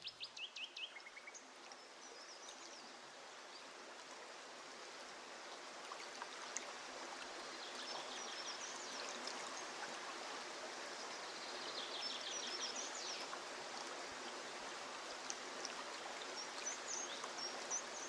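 Faint, steady rush of running river water, with small birds singing short, rapid trills several times over it.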